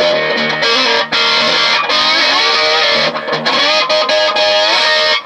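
Electric guitar played with a slide through an amp: held chords and notes, with pitches gliding up and down. The player hears the second string pulling itself flat.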